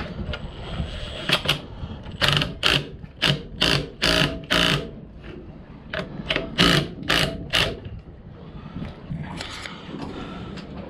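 Cordless power driver running in about a dozen short bursts, driving the bolts on the gear housing of a new marine raw water pump; the bursts stop about 8 seconds in.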